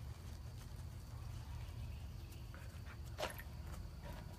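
A puppy's brief short sound about three seconds in, over a steady low hum.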